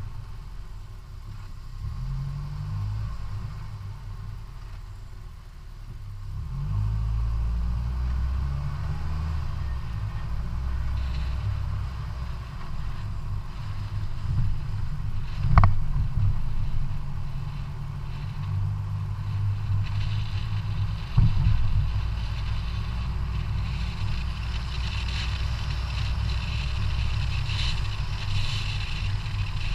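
Wind buffeting a bicycle-mounted GoPro's microphone while riding, an uneven low rumble mixed with road noise from the tyres. Two sharp knocks come about halfway through and again some six seconds later.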